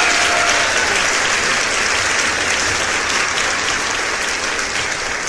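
Applause from a crowd, clapping steadily and slowly fading.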